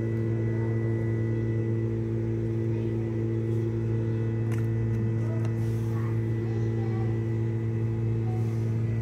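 A steady machine hum with a low tone and several higher tones held unchanging, with a few faint clicks.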